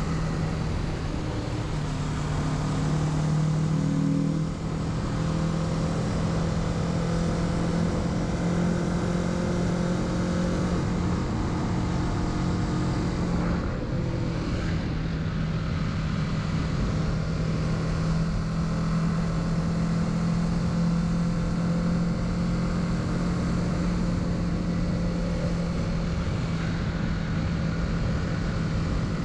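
Kawasaki Z650's parallel-twin engine running at steady cruising revs under way, with wind and road noise over it; the engine note shifts slightly a few times.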